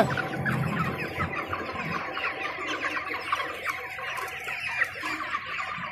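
A shed full of broiler chickens calling all at once, a dense, continuous chatter of overlapping clucks and peeps.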